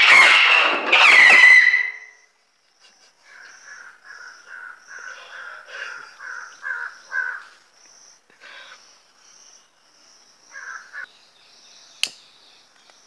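A firework rocket shooting across water, hissing loudly with a whistling tone for about two seconds. Quieter repeated calls follow, and there is a single sharp click near the end.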